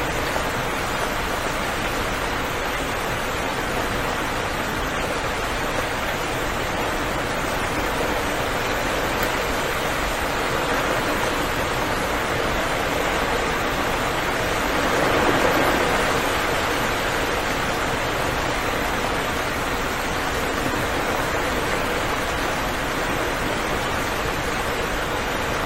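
Steady rain falling continuously, swelling briefly about halfway through.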